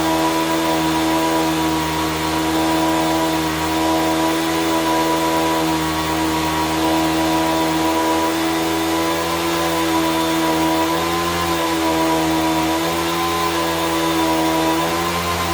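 A motor running steadily with a droning, many-toned hum, its pitch wavering briefly about eleven seconds in and again near the end.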